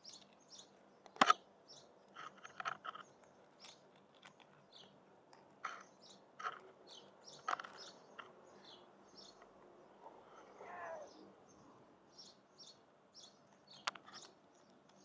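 Tabby cat crunching dry kibble from a plastic tray: a series of sharp crunchy clicks, the loudest about a second in, and more around the middle and near the end. Small birds chirp repeatedly throughout, and a short wavering call sounds about ten seconds in.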